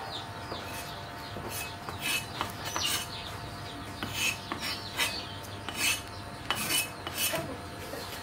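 A metal kitchen utensil scraping and clinking in irregular strokes during food preparation. The strokes start about two seconds in and come roughly one to two a second.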